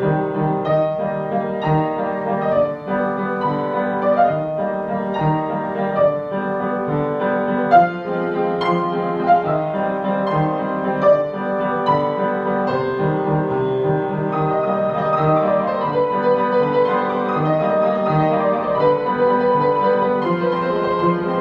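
Background piano music, a steady run of repeated chords and notes.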